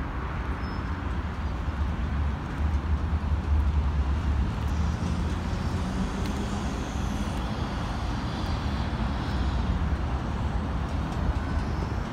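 Steady city road traffic: an even low rumble of passing vehicles with no distinct events.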